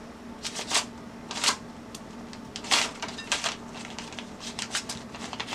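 A metal spoon scraping and clinking against a glass mixing bowl as soft butter is pushed off it onto sugar: irregular light clicks and scrapes.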